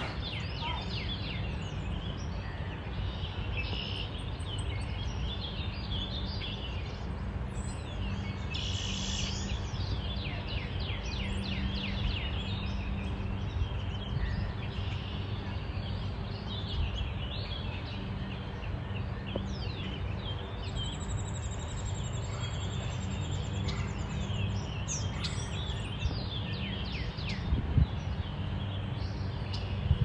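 Many small birds chirping and singing, short quick calls overlapping throughout, over a steady low background noise. A few brief thumps near the end.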